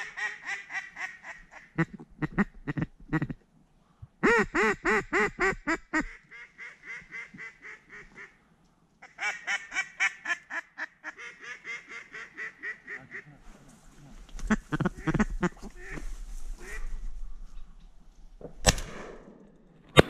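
A duck call blown in several runs of rapid quacks, imitating a hen duck to draw a circling duck in over the decoys. Near the end there is a single shotgun shot.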